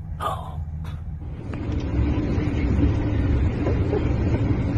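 Low rumble of a car's cabin on the move, getting louder about a second and a half in, with a brief sound near the start.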